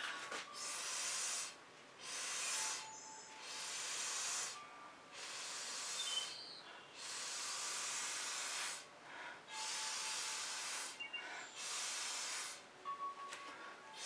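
Repeated puffs of breath blown through a drinking straw onto wet fluid acrylic paint to push it across the canvas: about seven airy blows of a second or so each, with short pauses between.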